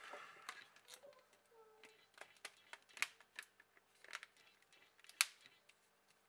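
Plastic back cover of a Huawei Y5 II smartphone being pressed around its edges and snapped onto the phone: a string of sharp, irregular clicks as its clips engage, the loudest about five seconds in.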